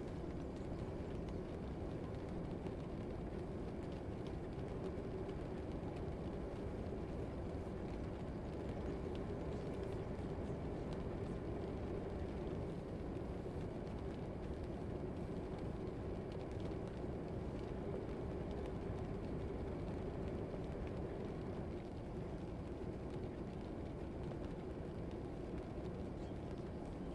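Steady, even low rumble of a background ambience track, with no distinct events.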